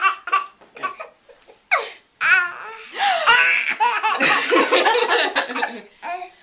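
A baby laughing hard in repeated bursts, with a short pause about two seconds in and then a long run of laughter, with adults laughing along.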